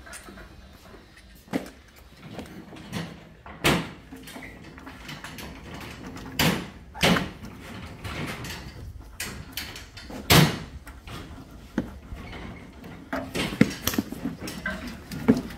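Scattered knocks and clunks of objects being handled and set down, or of doors shutting: about half a dozen separate hits, with the loudest about ten seconds in and a quicker cluster near the end.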